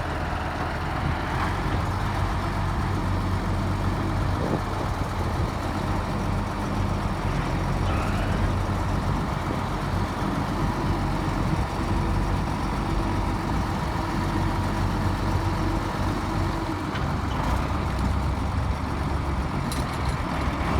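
Large tractor engine running steadily under load, pulling a manure spreader that is stuck in mud.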